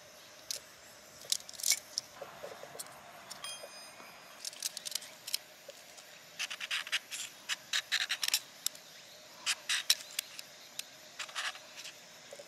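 The back of a snap-off utility knife blade scraped hard along a ferrocerium rod to strike sparks, heard as repeated short metallic scrapes in several quick bursts.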